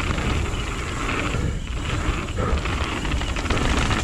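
A mountain bike moving along a dirt trail: wind rushing over the microphone and tyres rolling on the dirt, making a steady rumbling noise with hiss above it.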